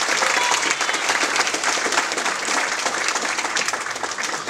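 Audience applauding: dense clapping from many hands that eases off a little near the end.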